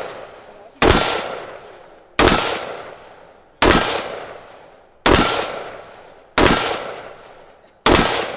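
Six single shots from an AR-15 style rifle, fired at an even pace about a second and a half apart. Each shot is loud and sharp, followed by a long fading echo and a short metallic ring.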